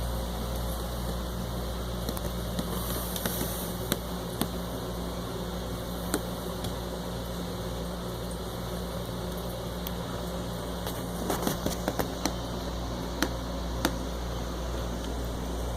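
Steady mechanical hum like a fan or air-conditioning unit, with occasional small clicks and taps, several clustered together near the end.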